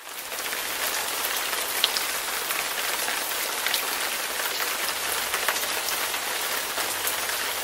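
Steady hissing patter like rain, with scattered light ticks, rising in quickly at the start.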